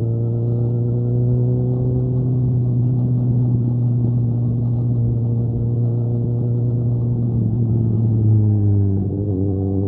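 Suzuki GSX-S750's inline-four engine through a Mivv Storm aftermarket exhaust, running at a steady engine speed while riding; the pitch sinks slowly, then drops more clearly about nine seconds in as the revs come down.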